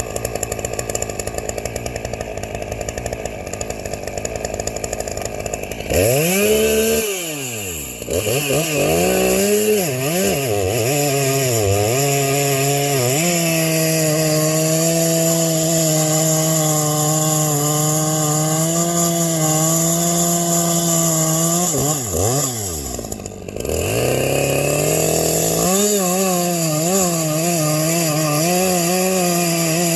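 Two-stroke chainsaw with a freshly gas-ported piston and deleted base gasket, idling, then opened to full throttle about six seconds in and held at high revs in a cut. Near the three-quarter mark the revs drop off briefly, then it comes back up to full throttle and runs steadily again.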